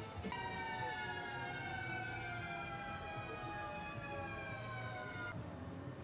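A siren wailing on one long tone that slowly slides down in pitch for about five seconds, starting and cutting off abruptly.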